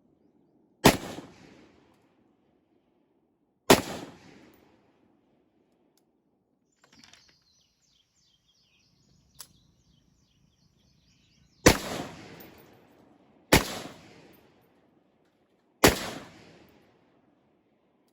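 Five shots from a .308 AR-10 rifle fitted with a muzzle brake, each followed by a long echoing tail: two shots about three seconds apart, then after a pause three more about two seconds apart.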